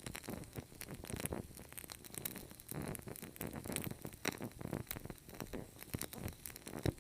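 Burning candle crackling and sputtering close up: a run of irregular small crackles and pops with brief noisy hiss between them.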